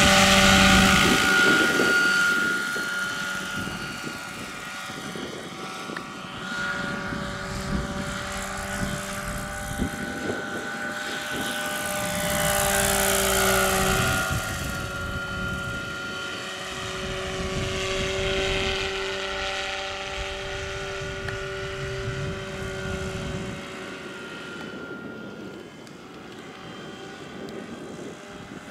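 Large electric RC scale helicopter of a Lockheed XH-51N (2 m rotor) flying: the whine of its electric drive over the beat of the rotor blades. It is loudest as it passes close at the start and again about halfway through, where the whine bends in pitch, then grows fainter as it climbs away near the end.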